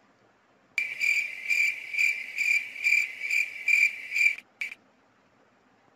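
Cricket chirping: a high trill pulsing about twice a second for roughly three and a half seconds. It starts abruptly out of dead silence about a second in and stops just as abruptly, the way a comedic "crickets" sound effect does.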